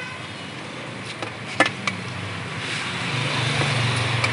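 A motor vehicle passing on the road, its engine hum and tyre noise growing louder from about halfway through. There is a sharp clink about a second and a half in.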